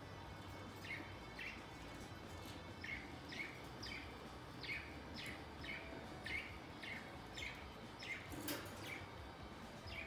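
Budgerigars chirping: a string of short, falling chirps, roughly two a second. About eight and a half seconds in there is one sharp tap or click.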